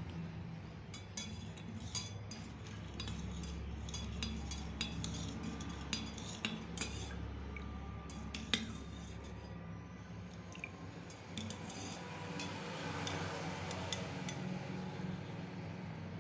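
Spoon and cookware clinking and scraping in many short, irregular knocks over a steady low hum, as when utensils are handled while cooking a kadha.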